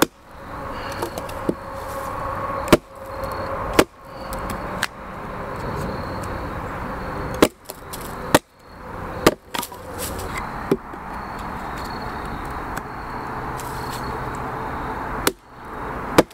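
Hatchet splitting kindling on a wooden chopping block: a series of sharp, irregularly spaced chops into wood over a steady background noise.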